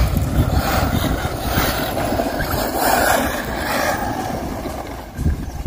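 Arrma Mojave 6S RC trucks driving on a dirt track: brushless electric motors running and tyres scrabbling over loose dirt, a steady noisy rumble with no single loud event.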